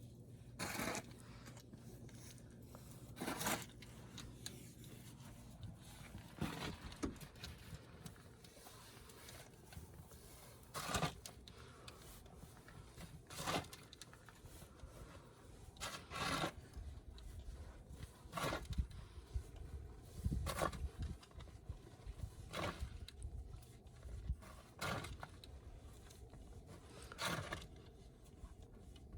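Short scraping crunches in snow, one about every two to three seconds, over a faint low background.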